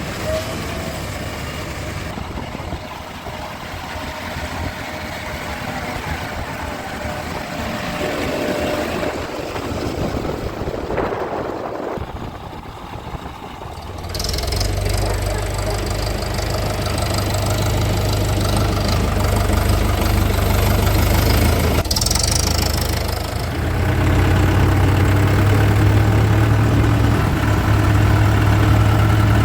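Diesel engines of a backhoe loader and farm tractors running while they work. The low engine hum becomes steady and louder about halfway through, with abrupt changes in the sound at several points.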